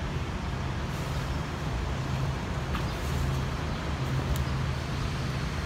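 Steady low hum and rumble of road traffic.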